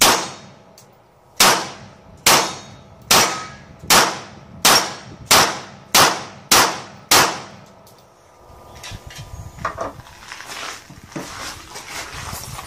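Semi-automatic pistol fired ten times, a slow first pair and then a quickening string of shots, each with a ringing tail.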